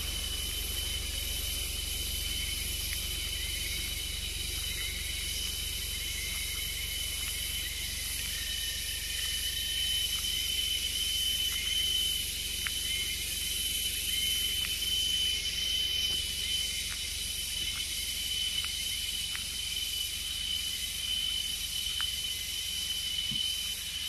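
Tropical rainforest insect chorus: a continuous high-pitched drone holding two steady tones over a high hiss, with a low rumble underneath and a few faint short chirps.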